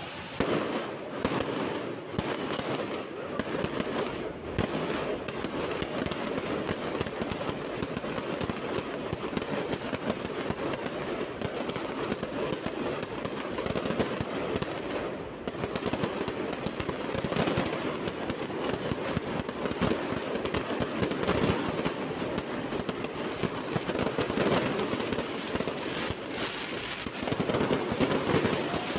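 Fireworks and firecrackers going off in a dense, continuous barrage of rapid bangs and crackling, starting suddenly right at the beginning.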